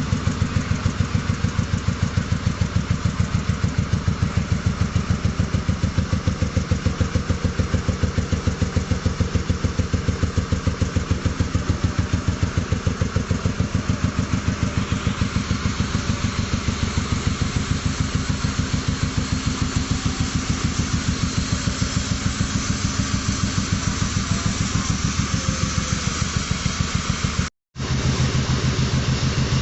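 Sawmill machinery running: an engine with a steady, fast pulse and a strong low hum, joined from about halfway by a louder hiss. The sound drops out for a moment near the end.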